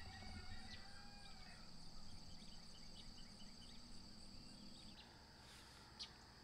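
Faint steady chorus of crickets or similar insects, a high even trill, with a few soft bird calls in the first few seconds and a single small click about six seconds in.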